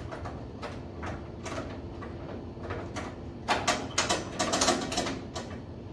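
A run of sharp clicks and knocks, sparse at first, then a louder quick clatter of several knocks about three and a half seconds in, over a low steady hum.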